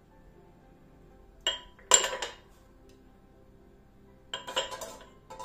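Ceramic cups clinking against each other and against a stainless steel pot as they are set one by one into it: two clinks about a second and a half and two seconds in, the second the loudest, then a run of smaller clinks near the end.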